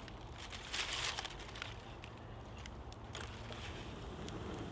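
Small dry twigs and dead leaves being pushed into a campfire's embers, crinkling and snapping, with a denser burst about a second in. The fire crackles as the kindling catches.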